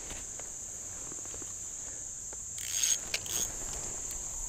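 Steady high-pitched insect trill, typical of crickets. Two short rustling noises come about two and a half to three and a half seconds in.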